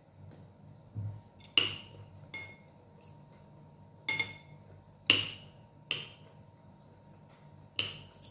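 Metal spoon and fork clinking against a ceramic bowl during eating, about six sharp, ringing clinks at irregular intervals, with a dull low thump about a second in, over a faint steady hum.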